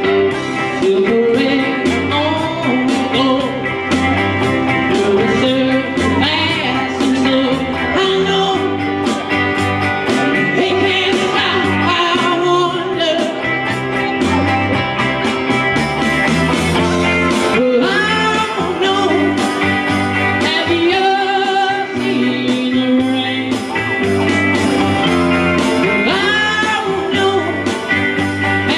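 Live rock and roll: a man singing into a microphone while strumming an electric guitar, over a steady bass line and drum beat.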